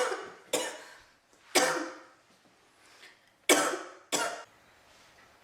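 A woman coughing four times in harsh, sudden bursts: two about a second apart, then a pause, then two close together. The coughing comes from inhaling thick vape smoke.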